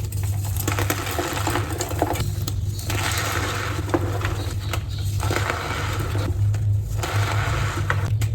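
Gym chalk blocks crushed and crumbled in the hands, with crisp crunching in several spells and short pauses between them, over a steady low hum.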